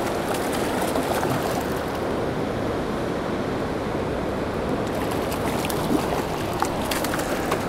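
Steady rushing of a fast-flowing river, with a few faint clicks and scuffs in the second half as clothing brushes against the camera.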